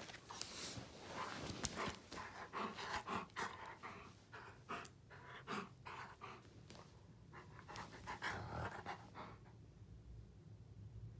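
Wolf dog panting in quick, irregular breaths while it mouths at a hand, stopping about nine seconds in.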